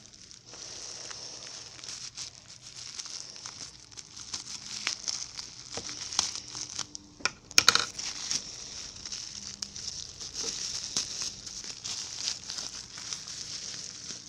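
Thin clear plastic toy bag crinkling and rustling as hands handle and unwrap it, with small crackles throughout and one sharp, louder crackle about seven and a half seconds in.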